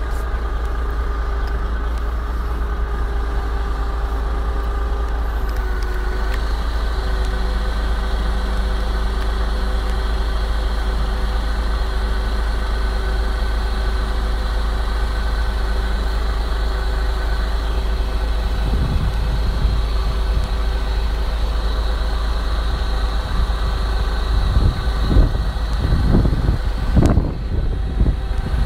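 Heavy vehicle engine running steadily, a low rumble with several held tones over it. Irregular low bumps and rumbles come in over the last ten seconds.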